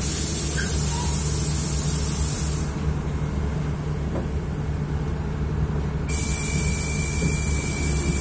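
City bus engine idling steadily at a stop, with a hiss of compressed air over the first few seconds. A steady high tone starts about six seconds in.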